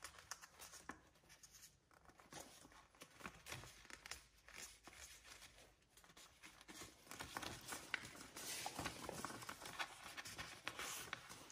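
A sheet of printer paper being folded and creased by hand: faint crinkling and rustling with short scrapes, busier in the last few seconds.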